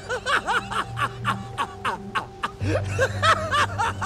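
A man laughing in a quick string of short gloating bursts, over a low sustained music drone.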